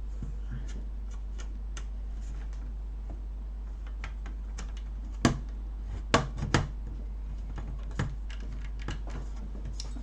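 Hands working on an amplifier: scattered light clicks and taps of small parts being handled, with a few sharper knocks about five to eight seconds in, over a steady low hum.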